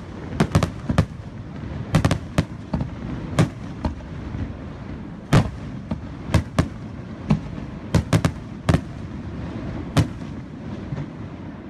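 Aerial firework shells bursting: an irregular series of sharp bangs, sometimes two or three in quick succession, over a low rumble. The bangs stop about ten seconds in.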